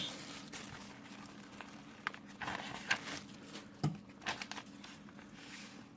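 Paper instruction booklets being handled and leafed through: irregular rustling and crinkling with a few light clicks.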